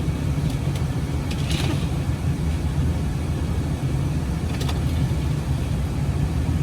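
Car engine idling with a steady low rumble, a few faint scrapes or clicks on top.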